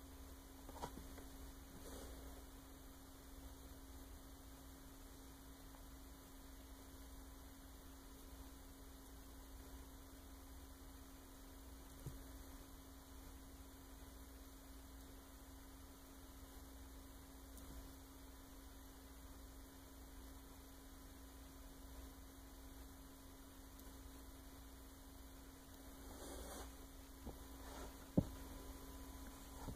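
Faint steady electrical hum holding one low tone, with a few soft clicks and one sharper click near the end.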